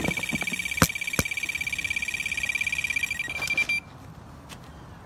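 Electronic carp-style bite alarm sounding a fast, continuous run of high beeps as a fish takes line, cutting off suddenly near the end, with a couple of sharp knocks of handling about a second in.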